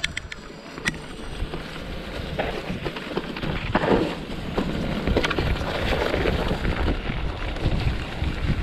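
Mountain bike tyres rolling over a trail of dry fallen leaves, a continuous crunching rustle, with wind rumbling on the microphone and a few knocks from bumps in the trail.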